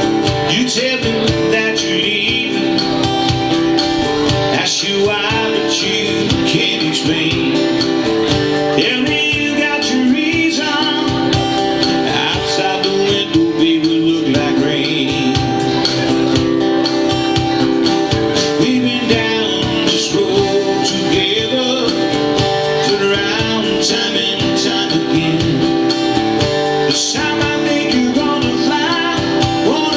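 A man singing while strumming an acoustic guitar: a live vocal and guitar performance of a song.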